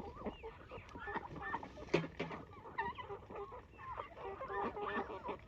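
A flock of chickens clucking and calling, many short overlapping calls, with one sharp knock about two seconds in.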